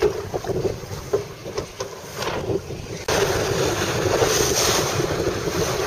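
Wind buffeting the microphone over open water, with waves slapping and splashing against a boat's hull. About three seconds in, the sound jumps abruptly to a louder, steadier rush of wind and water.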